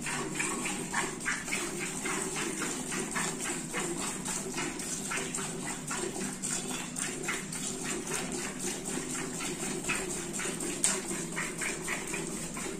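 Hand-milking a cow into a steel bucket: rhythmic squirts of milk hitting the bucket, about three a second. A steady low hum runs underneath, and there is a single sharp click near the end.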